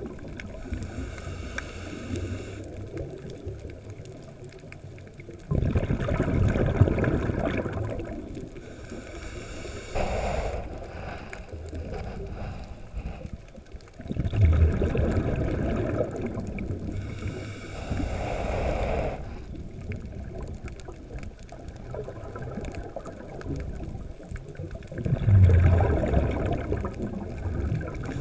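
Scuba diver breathing through a regulator, heard underwater: three breaths, each a hiss of inhaled air followed a few seconds later by a loud rumble and gurgle of exhaled bubbles.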